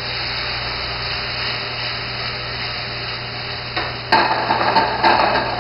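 Mushrooms sizzling in a hot sauté pan as it is deglazed with white wine, a steady hiss that turns louder and rougher, with stirring or scraping, about four seconds in.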